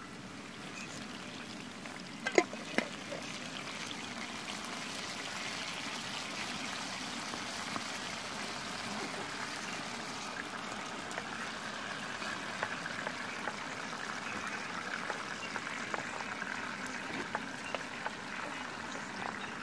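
Grated tomato and chopped peppers sizzling and simmering in a frying pan on a portable gas burner, the bubbling growing a little louder. Two sharp knocks about two and a half seconds in.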